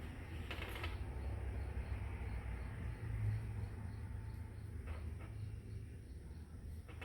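A few light clicks and rustles of Czech glass beads and their packets being handled, a cluster near the start and another about five seconds in, over a steady low rumble.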